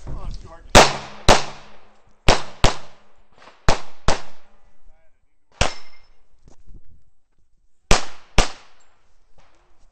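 Semi-automatic pistol firing quick pairs of shots: four pairs and one single shot, nine in all, each with a short echo.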